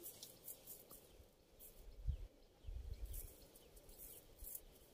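Faint outdoor ambience: scattered short, high-pitched chirps over irregular low rumbles, with a brief low thump about two seconds in.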